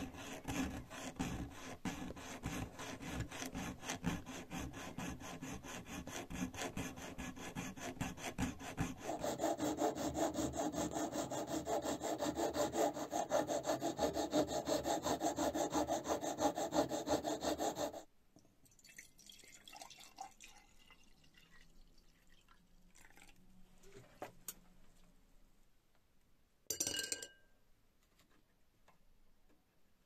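Brass being filed by hand with steel files: quick, even rasping strokes, first with a round file in a slot, then louder with a flat file drawn across the brass strip. The filing stops suddenly about two-thirds of the way through. Faint handling noises follow, with one short louder knock near the end.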